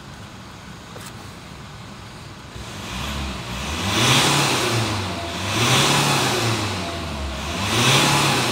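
Mitsubishi Triton's 2.5-litre diesel engine idling in park, then revved three times from about three seconds in, the engine note rising and falling with each rev.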